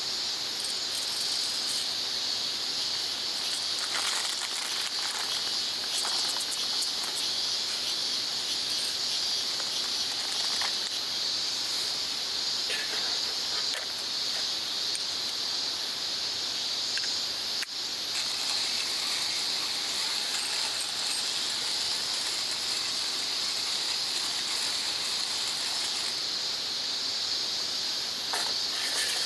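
Steady high-pitched chorus of insects, with a few faint clicks scattered through it.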